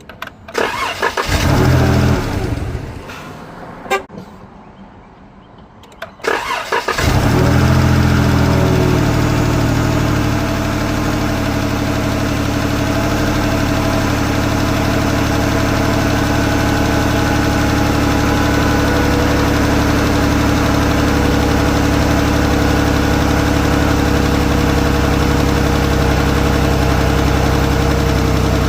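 Dodge Charger V6 engine started, likely its first start after new spark plugs and ignition coil packs, to check the misfire repair. After a short burst of sound and a click, it catches about seven seconds in, runs a little higher for a few seconds, then settles into a steady idle.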